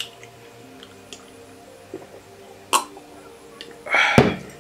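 Mouth noises of eating, with a few sharp clicks, then about four seconds in a loud, short throat sound from the eater.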